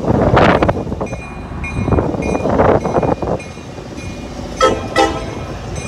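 A Tri-Rail commuter train's horn sounds two short blasts, half a second apart, near the end. Before them there is a gusty rushing noise.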